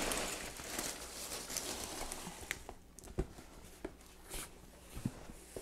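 Foam packing peanuts and cardboard rustling as a box is pulled out of a shipping carton, dying down about halfway, followed by a few light taps and knocks of cardboard.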